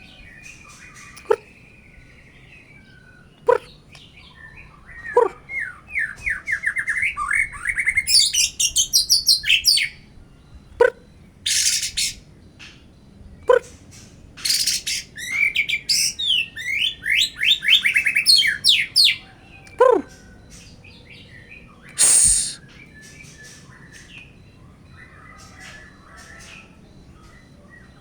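White-rumped shama singing in bouts: fast runs of repeated rising whistled notes, broken by a few short harsh, hissy bursts and single short lower notes.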